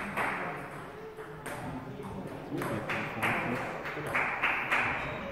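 A table tennis ball bouncing, a series of irregular light pings, each followed by a short echo of a large hall.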